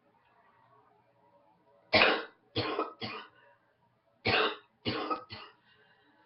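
A woman coughing in two fits of three short coughs each, the first about two seconds in and the second about a second later: a congested cough from a head cold.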